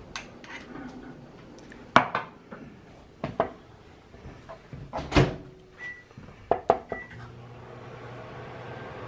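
Kitchen handling sounds: several sharp knocks and clunks of utensils and containers set down and handled on a countertop and cutting board, the loudest about two seconds in and others around five and seven seconds.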